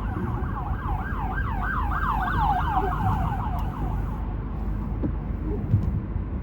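Police car siren in a fast yelp, sweeping up and down several times a second. It is loudest about two to three seconds in and fades out about four seconds in, over the steady low rumble of a car driving on the road.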